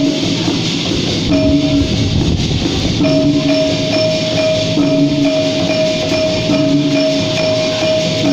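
Instrumental dikir barat music from a percussion ensemble, with long held ringing tones over the beat.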